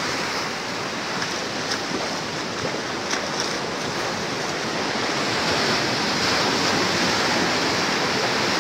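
Ocean surf washing over rocks along the shore, a steady rush of breaking waves.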